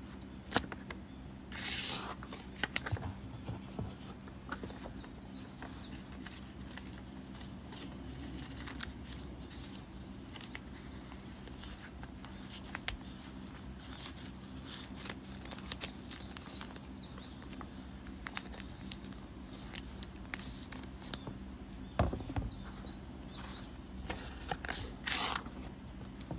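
Sketchbook paper pages and a clear plastic sleeve being handled and turned: soft rustles, small taps and clicks, and two short swishes of a page turning, one about two seconds in and one near the end. A steady low hum runs underneath.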